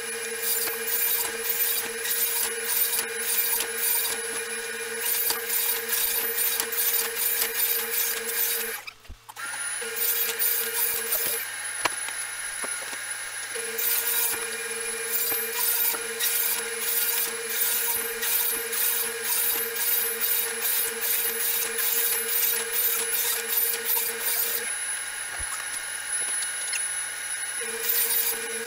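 Ridgid R4520 table saw running and rip-cutting a sheet of plywood: a steady motor and blade whine under the rough rasp of the blade through the wood. The sound drops out briefly about nine seconds in.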